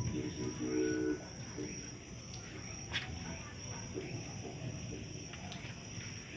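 Crickets chirping in a steady high-pitched drone. A brief low pitched sound is heard in the first second, and a single sharp click about three seconds in.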